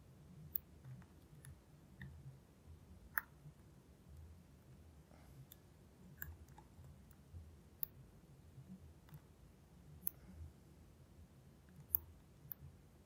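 Faint metallic clicks and small scrapes of a lock pick working the pins of a Brady lockout padlock with an Abus-style keyway, under tension from a tension wrench. The sharp clicks come singly at irregular intervals, the loudest about three seconds in and near the end.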